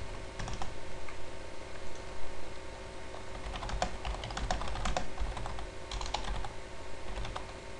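Typing on a computer keyboard: an uneven run of quick key clicks, thickest in the second half.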